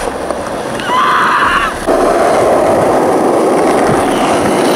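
Skateboard wheels rolling on rough pavement, a steady loud grinding rumble. A brief higher sound comes about a second in, and the rolling gets suddenly louder about two seconds in.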